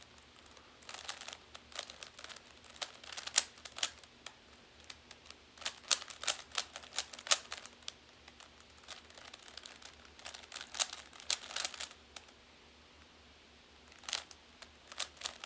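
Rubik's cube being turned by hand: spurts of rapid plastic clicks as the layers are twisted, with short pauses between spurts, in the last moves of a solve.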